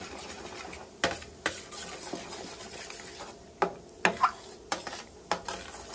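Metal utensil knocking and scraping against a pan on a hot griddle, about six sharp clinks, some of them ringing briefly, over a faint steady sizzle of food cooking.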